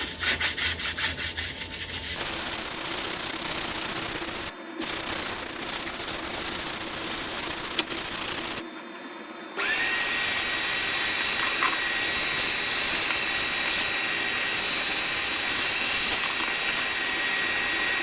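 Sandpaper rubbed by hand over wood in quick back-and-forth strokes for about the first two seconds. After two short breaks, a power tool runs steadily with a thin high whine.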